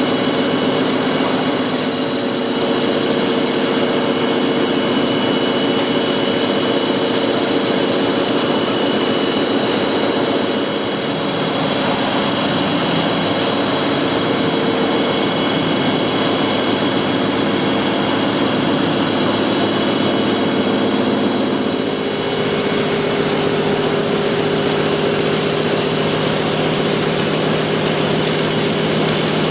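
Pama large horizontal boring and milling machine cutting the face of a large valve body under coolant spray: a steady machine hum with several held whining tones over a steady hiss. About three-quarters of the way through the sound shifts, the hiss growing brighter and a lower tone coming in.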